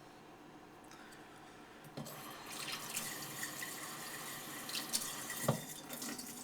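Water trickling and splashing on a wet sharpening stone, starting about two seconds in, with a few light knocks.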